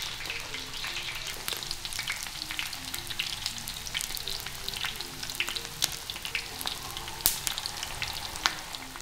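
Garlic, ginger and scallion frying in hot oil in a large iron wok: a continuous crackling sizzle full of sharp spitting pops, with a few louder pops late on.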